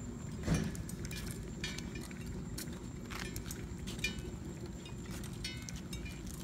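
Children's bicycles being pushed along pavement: light metallic clinks, ticks and rattles from the bikes' loose parts, with a sharper knock about half a second in.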